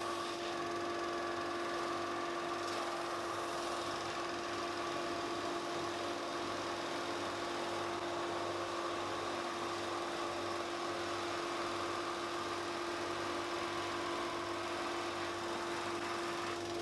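A small electric motor running steadily with a constant even hum, with no change in pitch.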